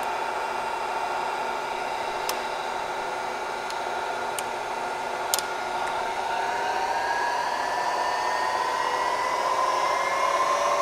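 Bridgeport Series I vertical mill head with its spindle running in high gear, a steady, quiet whine whose pitch rises slowly through the second half as the speed climbs. A few light ticks come in the first half.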